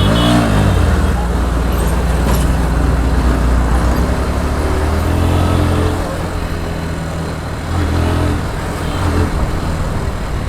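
Bajaj Pulsar NS 125's single-cylinder engine running under way in traffic. Its revs rise and fall a few times as the throttle is worked, over a steady rushing noise.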